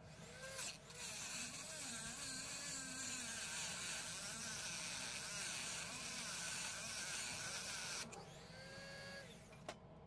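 Rotary tool with a cut-off disc grinding through the metal jaw of a pliers multitool: a loud, steady hiss of disc on metal, with the motor's whine wavering under load. About eight seconds in the disc comes off the metal and the motor whines on its own, then there is a sharp click.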